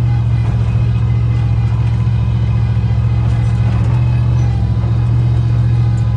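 Steady low rumble of a car driving along, engine and road noise holding even throughout.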